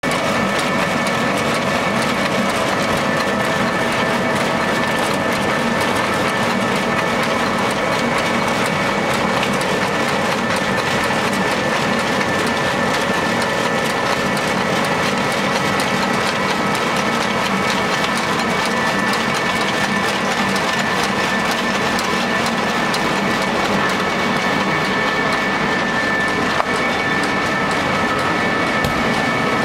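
A sawdust pellet production line running: a steady machine whine in several pitches over a continuous rattle of freshly pressed wood pellets pouring and shaking on a vibrating screen.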